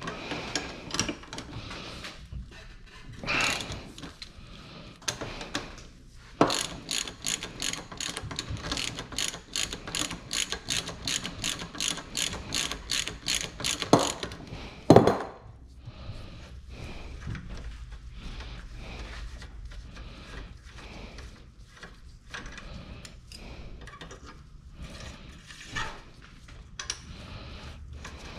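Hand ratchet wrench clicking rapidly and evenly, about four clicks a second for several seconds, as a bolt is spun. A single loud knock follows, then quieter scattered tool clicks and handling noise.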